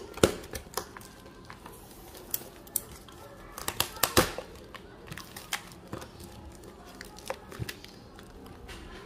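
Scissors cutting the packing tape of a cardboard shipping box, then the box being handled and its flaps pulled open: an irregular run of sharp snips, snaps and cardboard crinkles. The loudest snaps come about a quarter second in and just after four seconds in.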